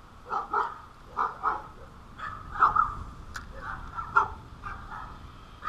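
Short, repeated animal calls, about a dozen, many coming in quick pairs, with a sharper one at the very end.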